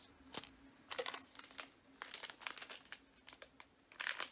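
Clear plastic packaging crinkling as it is handled, in a string of short crackles, loudest about four seconds in.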